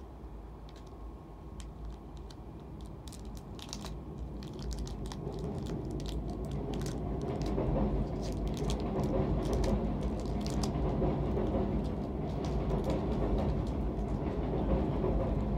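Yu-Gi-Oh! mega-pack foil wrappers crinkling and tearing as the packs are opened: many short sharp crackles over a low rustling that grows louder through the first half.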